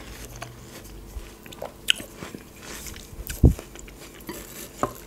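Close-up chewing of a mouthful of watermelon: wet mouth sounds with small crunches and clicks. A single low thump about three and a half seconds in.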